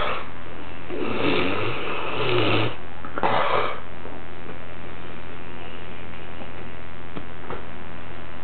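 A sleeping kid snoring: one long snore with a low, buzzing pitch from about a second in, then a shorter one, after which only a steady background hum is left.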